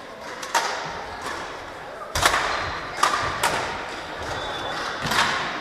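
Badminton rally: rackets striking the shuttlecock in a string of sharp hits, roughly one a second, each echoing in the sports hall. The loudest hit, about two seconds in, carries a deep thud.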